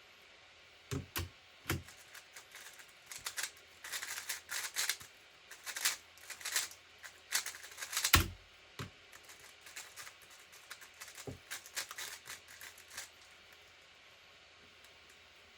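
Tornado V3 speedcube being turned fast by hand, a quick run of plastic clicks and clattering turns, with one loud thump about eight seconds in.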